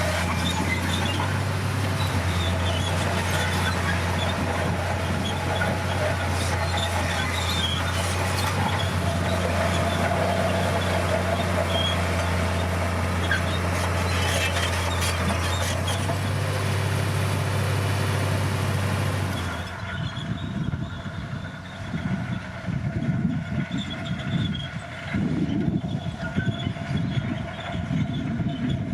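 Komatsu D60P crawler bulldozer running under load, its diesel engine humming steadily with a hiss of noise above. About two-thirds of the way through the sound changes abruptly: the hiss drops away and a lower, uneven, pulsing rumble takes over.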